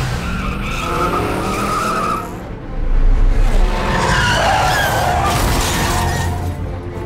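Car tyres squealing in two long skids over a running car engine, with a deep rumble between them about three seconds in.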